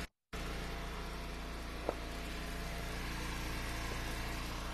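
Gas engine of an Eastonmade Ultra hydraulic log splitter running steadily, with a single sharp click about two seconds in. The audio cuts out for a moment right at the start.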